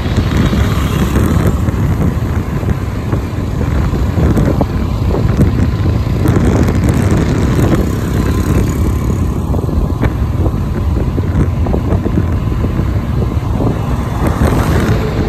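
Loud, steady rumble of a moving road vehicle, with wind buffeting the microphone.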